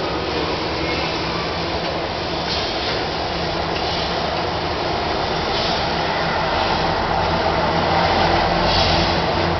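Train running, heard from inside the carriage: a steady rumble and rush of running noise that grows a little louder near the end.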